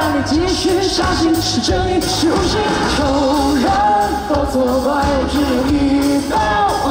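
A pop-rock song: a singer holding long, bending notes over a band with drums and bass.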